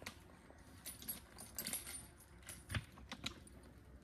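Faint, irregular metallic clinking and jingling of the draft horses' harness hardware, with a dull thump about two-thirds of the way through.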